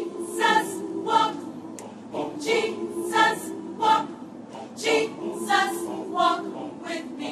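A large group of voices singing in chorus: short rhythmic sung notes, mostly in groups of three, over a low held hum.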